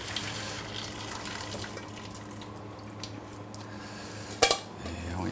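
Hot pasta water being poured off from a stainless-steel pot into a steel sink, running and splashing steadily. A single sharp knock comes about four seconds in.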